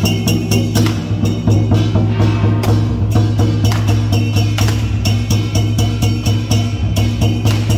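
Music with a steady low drone and sharp percussive strokes, several a second.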